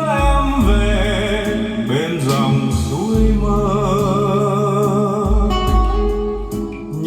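A Vietnamese ballad playing through Altec Lansing Valencia 846B loudspeakers backed by subwoofers: an instrumental passage with guitar and a wavering melody line over deep, sustained bass notes.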